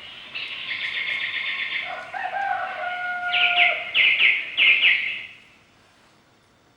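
Village ambience sound effect: a rooster crowing once in a long held call, with small birds chirping in quick trills around it. The sound stops about five seconds in.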